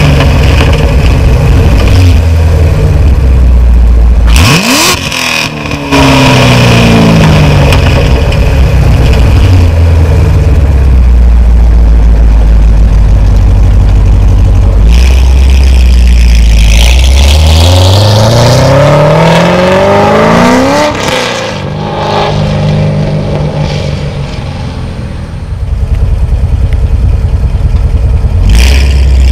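2014 Chevrolet Corvette C7 Z51 Stingray's LT1 6.2-litre V8, breathing through long-tube headers and an off-road X-pipe with no catalytic converters, idling and revved in place. A short sharp blip comes about four seconds in. Later a longer rev climbs steadily for about four seconds, then falls quickly back to idle.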